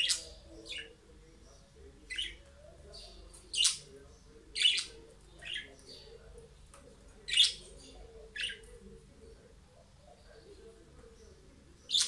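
Pet budgerigars giving short, sharp chirps: about ten separate calls at irregular intervals, a few clearly louder than the rest.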